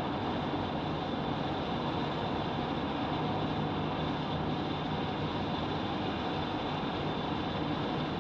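Steady outdoor background drone: an even rushing noise with a faint low hum underneath, unchanging throughout.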